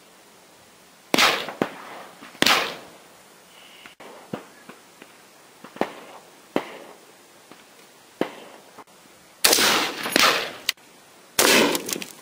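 AR-15 rifle firing 5.56mm rounds: loud single shots at uneven intervals, two in the first few seconds and three close together near the end, each trailing off with echo. Fainter cracks fall in between.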